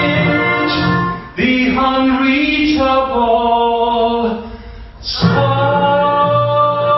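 Choir singing long held notes. There is a short break a little over a second in, and a softer passage before a new phrase comes in strongly about five seconds in.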